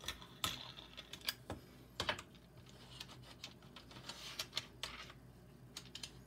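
Scattered light clicks and knocks of wooden jig parts and hardware being handled, set down and fitted onto a plywood sander table, with a small cluster of taps a little past the middle.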